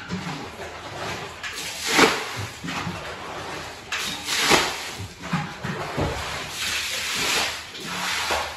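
Water thrown from a bucket splashing onto a soaked carpet and the tiled floor around it, several splashes in turn as the rug is rinsed.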